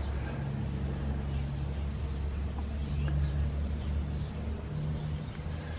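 A steady low engine hum, with a deeper tone that swells and fades a few times, under faint small clicks of the turn-signal connector's terminals being handled.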